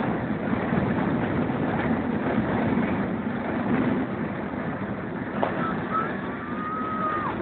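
Steady rumble of a train carriage running on the rails, with wind at the open window. In the last couple of seconds a faint thin high tone is held and then drops away.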